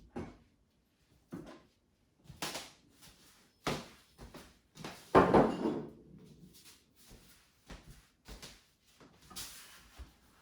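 A series of separate knocks and clunks as household objects are picked up, moved and set down on a kitchen surface, with about six distinct knocks; the loudest comes about five seconds in and rings briefly.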